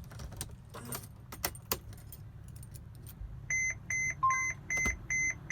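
Keys jangling in the ignition of a 2017 Mercedes-Benz Sprinter as the key is turned to start, with no cranking from the starter: the intermittent no-start that a replacement starter has not cured. About three and a half seconds in, a dashboard warning chime starts beeping rapidly, a little over twice a second.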